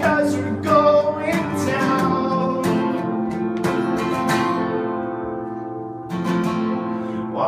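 Acoustic guitar strummed in a steady rhythm. About two-thirds of the way through, a chord is left to ring and fades before the strumming picks up again.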